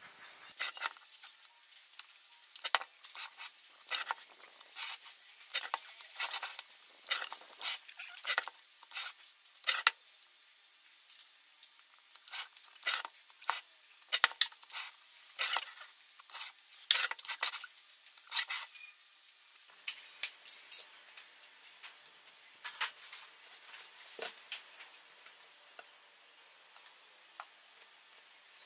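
Pencil scratching marking lines on a wooden box along a steel rule: short sharp strokes in quick runs, thinning out over the last third.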